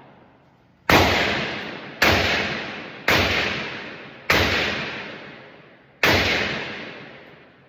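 Five gunshots from a firearm at a shooting range: four roughly a second apart, then one more after a slightly longer pause. Each shot is followed by a long echo that dies away.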